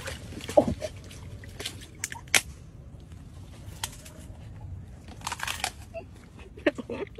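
An alligator biting down on a smartphone in its jaws: a few sharp cracks and crunches, the loudest about half a second in and again about two and a half seconds in, with a cluster of crackling around five seconds.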